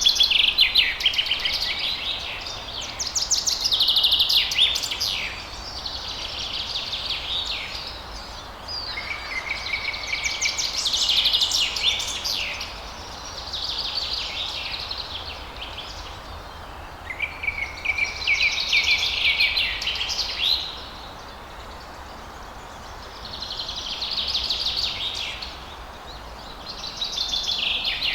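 Birds singing in bouts of fast, trilling, chattering phrases every few seconds, over a faint steady hiss of falling water.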